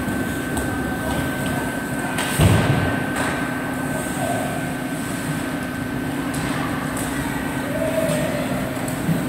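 Ice rink ambience during a youth hockey game: a steady hum under the scrape and hiss of skates, with one sharp thud about two and a half seconds in.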